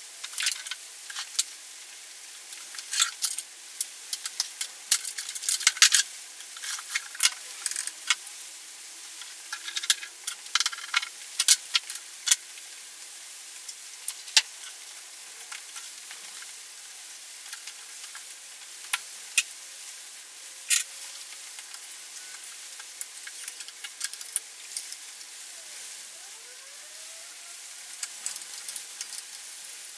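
Scattered clicks and knocks of plastic and metal parts and tools being handled while a sliding mitre saw is assembled by hand, busiest in the first half and sparser later, over a steady hiss.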